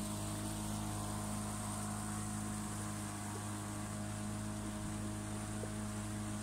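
Boat motor running steadily at cruising speed: a constant low drone with an even pitch.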